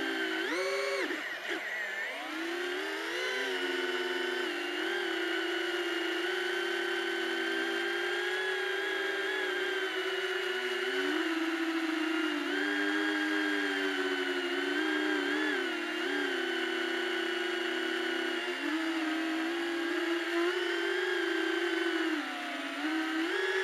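Brushless motors and ducted propellers of a BetaFPV Beta85X FPV whoop in flight, heard through its onboard HD camera: a steady whine whose pitch rises and dips with throttle changes.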